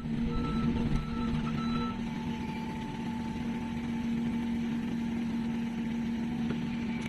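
Heavy construction machine's diesel engine running steadily, with its reversing alarm beeping about twice a second for the first two seconds before it stops.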